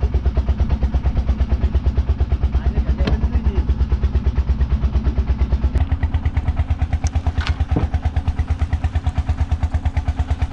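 A fishing boat's engine running with a steady, fast chugging beat, with a few short knocks over it.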